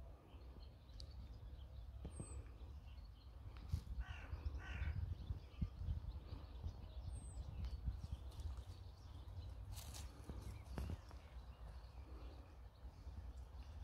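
Wind rumbling on the microphone outdoors, with a bird calling twice about four seconds in and a sharp knock about ten seconds in.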